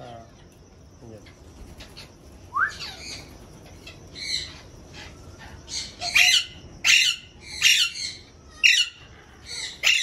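Parrots calling: a short rising whistle about two and a half seconds in, then in the second half a run of loud, shrill squawks about one a second.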